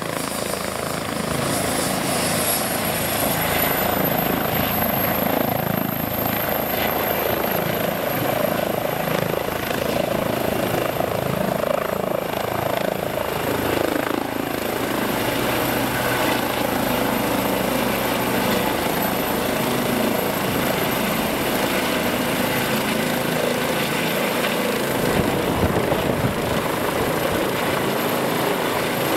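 Eurocopter EC135 twin-turbine helicopter taking off and climbing away overhead: steady loud rotor noise with a high turbine whine that rises in pitch a few seconds in, then holds.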